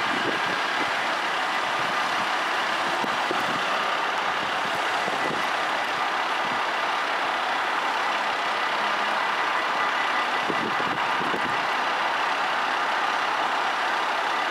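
Dutch level-crossing warning bells ringing continuously with a rapid, even electric ring at a steady level, signalling that the barriers are down for an approaching train.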